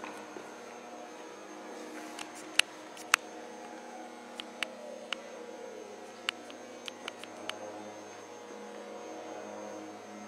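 Steady electrical hum made of several steady tones, with about ten sharp clicks or taps scattered through the middle, the two loudest close together.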